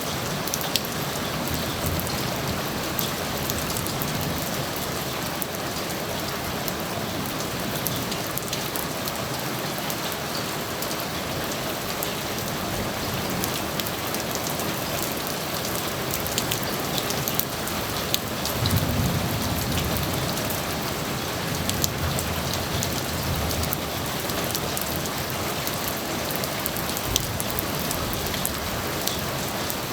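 Steady heavy rain falling, with sharp drops pattering on nearby surfaces. About two-thirds of the way through, a brief low rumble of distant thunder swells and fades.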